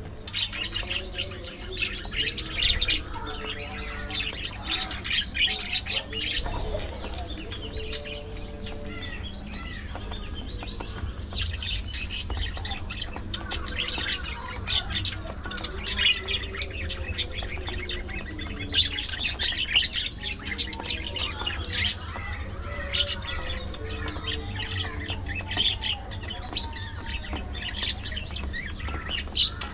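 A flock of budgerigars chirping and chattering continuously, a dense irregular stream of short high chirps mixed with lower warbling.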